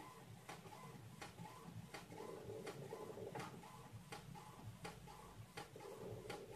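Faint photocopier mechanism ticking regularly, about one tick every three-quarters of a second, over a low machine hum that swells and fades.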